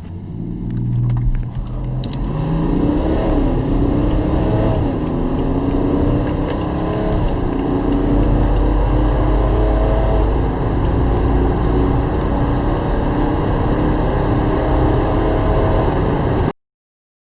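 BMW 3.0-litre straight-six turbodiesel accelerating hard from a standstill under a heavy low rumble. The engine note rises in pitch, then drops back at each upshift, several times over the run, before the sound cuts off suddenly near the end.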